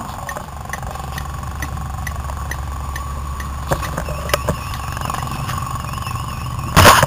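A fire engine's motor running steadily as a low rumble, with faint regular ticks about two or three a second. A wavering high tone comes in about halfway through, and a short loud rushing noise, the loudest sound, hits near the end.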